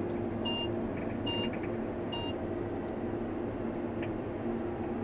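New Holland CR11 combine harvester running with a steady hum, heard inside its cab. Three short electronic beeps come a little under a second apart in the first half.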